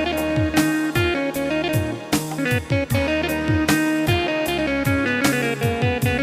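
Music: a plucked-string melody over a steady drum beat, with deep bass notes that slide down in pitch.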